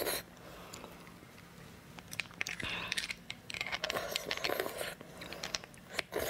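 Close-miked eating sounds: beef bone marrow being eaten off a split roasted beef bone and chewed, with many quick wet clicks and two longer noisy stretches, one a little before the middle and one just after it.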